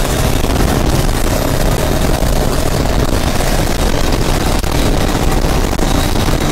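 Modified turbo-diesel long-tail boat engines running flat out at racing speed, a loud steady drone with no letup.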